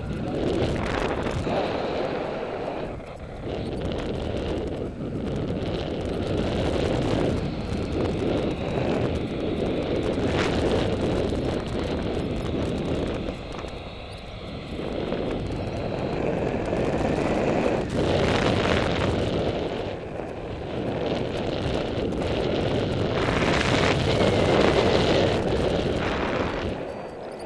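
Airflow buffeting the microphone of a paraglider's harness-mounted camera in flight: a steady rush of wind noise that swells and eases every few seconds.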